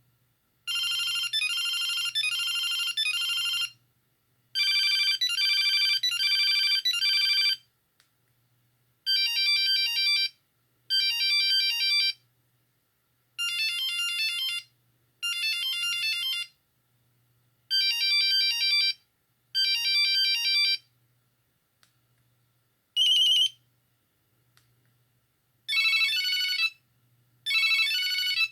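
Nokia 6310i monophonic ringtones playing from the phone's speaker: a run of short, high-pitched beeping melodies, each lasting a few seconds with brief pauses between, and one single short beep about two-thirds of the way through.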